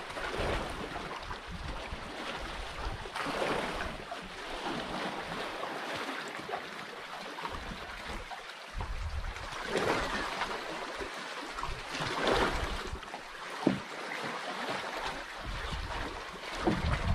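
Sea water lapping and sloshing around a small outrigger canoe, with a wooden paddle dipping and swishing through the water every few seconds. A single sharp knock comes about three-quarters of the way through.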